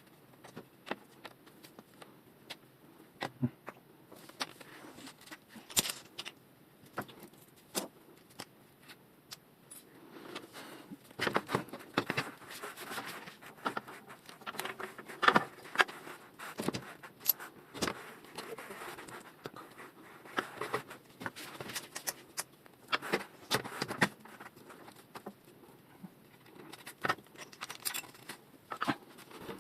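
Small metal headset parts and tools clinking, tapping and knocking irregularly as a bicycle fork and headset are put back together. The clicks are sparse at first and come thicker and louder through the middle.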